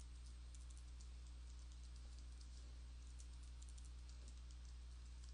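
Faint typing on a computer keyboard: a run of quick, irregularly spaced keystrokes over a low steady hum.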